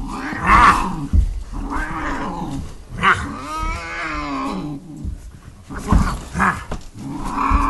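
Feral tomcat yowling and growling: about five long, wavering cries, the longest about three seconds in. It is the hostile sound of a cat that will not be handled.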